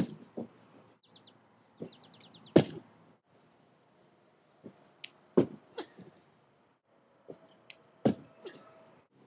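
Feet thudding onto a folding gymnastics mat on grass as a gymnast lands front tucks, four landings about two and a half seconds apart, each led by a lighter footfall from the take-off; the landing a little after two seconds in is the loudest. Birds chirp in quick short series in the background.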